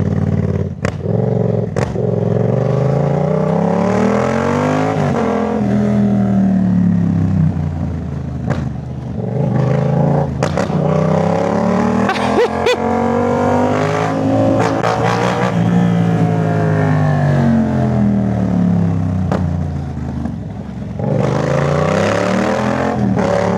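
Yamaha MT-07's parallel-twin engine through a Jeskap full aftermarket exhaust, heard from the bike while riding. The engine note climbs and drops several times as the rider accelerates and eases off.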